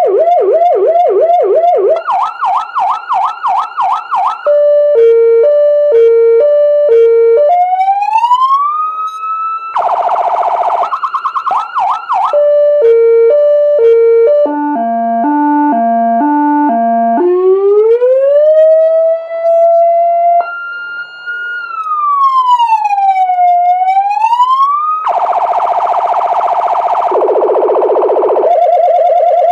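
Electronic vehicle siren played loud through a 200 W siren speaker, switching between tones. It goes from fast warbling chirps to a two-tone hi-lo, then slow rising wails and a slow fall-and-rise sweep, with harsh buzzy horn blasts about a third of the way in and again near the end.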